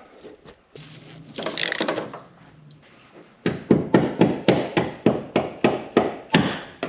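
A quick, regular series of hammer blows, about four a second, starting about halfway through, after some quieter handling noise.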